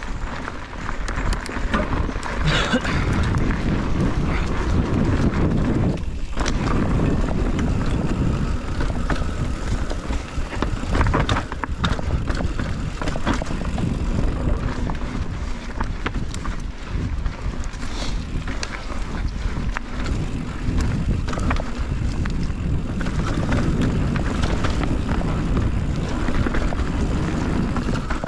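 Mountain bike being ridden down a dirt and rock trail: tyres rolling over rough ground, with frequent sharp rattles and knocks from the bike over bumps, under a steady low rumble of wind on the microphone.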